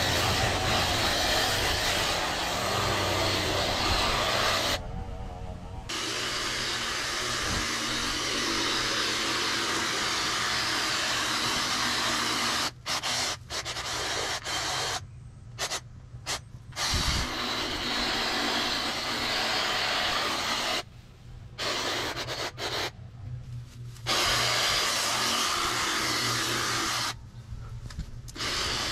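Lawn power equipment running steadily at high speed with a loud, even whooshing motor noise. Several times it drops out abruptly for about a second, then comes straight back.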